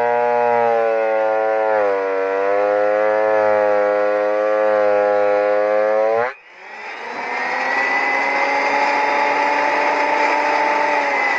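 Delta 22-540 12-inch portable planer running, its motor whining steadily; the pitch dips about two seconds in. About six seconds in the sound cuts out abruptly, then comes back as a noisier whine.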